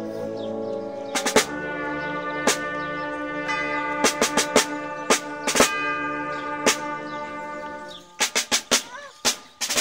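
Wind band playing a slow piece in held brass chords, with tubular bells struck over it about a dozen times and ringing on. Near the end the chords stop and a quick run of percussion strikes sounds before the band comes back in.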